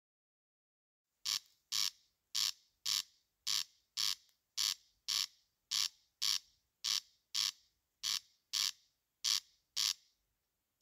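Corncrake (Crex crex) giving its rasping 'crex crex' call, starting about a second in. It is a short note repeated about twice a second, loosely in pairs.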